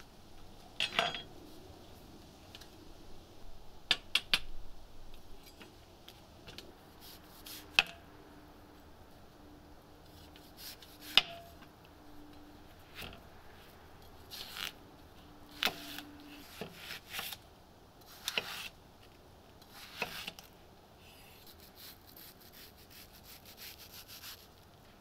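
Chef's knife cutting a watermelon on a wooden cutting board: separate knocks and crunches as the blade goes through the rind and strikes the board, about nine in all, spread out with pauses between them.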